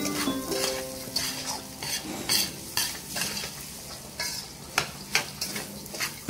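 Metal slotted spoon stirring and scraping soaked rice against a steel pan, in irregular strokes, while the rice sizzles as it toasts in butter.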